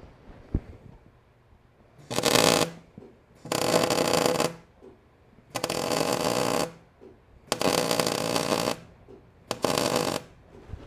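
Wire-feed (MIG) welding arc crackling in five short bursts of about a second each, with brief pauses between them, as tacks and short welds are laid on steel square tubing.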